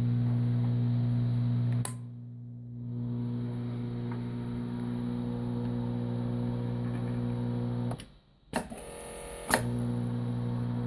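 Steady electric machine hum. It breaks off abruptly about two seconds in, and again for over a second near the end, where it returns with a sharp click.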